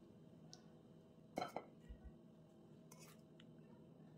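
A metal ladle clinks against cookware as sauce is ladled over a baking dish: a quick double clink about a second and a half in, then a fainter click later, against near silence.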